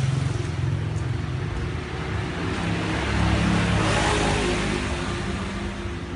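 A road vehicle's engine running close by in the street, its sound swelling to a peak about four seconds in as it passes and fading toward the end.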